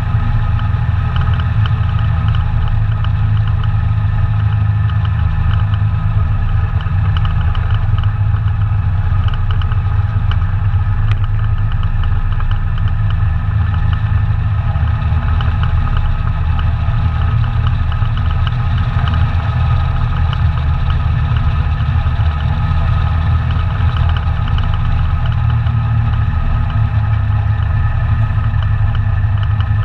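ATV engine running at a steady speed, a loud even rumble that neither rises nor falls.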